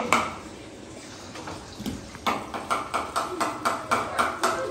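Black German Shepherd puppy panting rapidly with its tongue out, about four breaths a second, starting a couple of seconds in. It follows a brief sharp sound at the very start.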